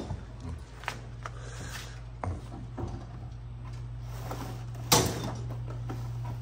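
A few knocks and clunks as things are shifted about in a pickup truck's bed and on its tailgate, the sharpest knock about five seconds in, over a steady low hum.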